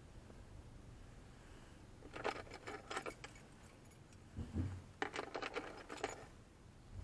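Two short bursts of metallic rattling and clicking, about three seconds apart, with a dull low thump between them.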